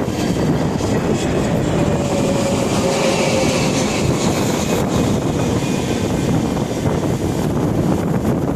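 Heavy wind buffeting the microphone, with the jet engines of an Airbus A320neo audible underneath as it comes in to land, their whine falling in pitch as the airliner passes about two to four seconds in.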